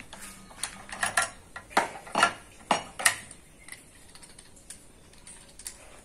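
Small metal parts of an electric hand planer (blades, blade clamps, bolts) clinking and clicking as they are handled on a wooden table. About eight sharp clinks in the first three seconds, then only faint ticks.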